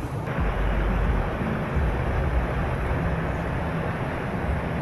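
Steady rushing noise over an uneven deep rumble, with no distinct events.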